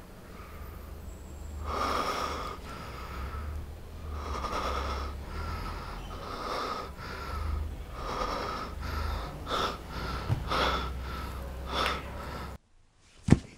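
Heavy breathing heard over a phone line: four long breaths, then three short sharp ones. The sound then cuts off, and a single sharp hit comes just before the end.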